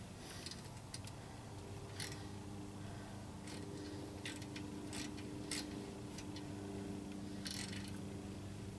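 Faint, irregular metallic clicks and clinks of a wrench on a bolt during a brake pad job, about a dozen spread over several seconds. A faint steady hum comes in about two seconds in.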